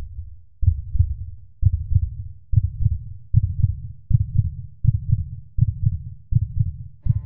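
Heartbeat sound effect: low double thumps, lub-dub, about once a second and gradually quickening.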